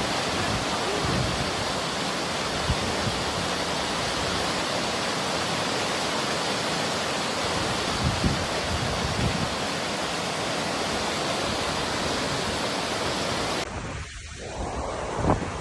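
Waterfall rushing with a steady, even roar of falling water. About 14 s in it cuts off abruptly and gives way to gusty wind buffeting the microphone.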